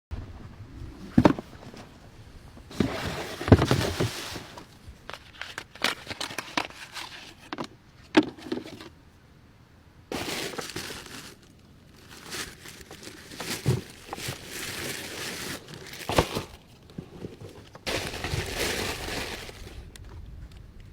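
Packaging being handled while unboxing football boots: bursts of rustling and crinkling wrapping and box, broken by several sharp taps and knocks.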